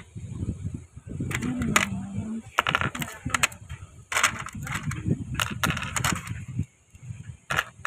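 Black plastic swivel snap hooks clicking and clattering against each other and their clear plastic box as a hand picks through them, a string of sharp, irregular clicks.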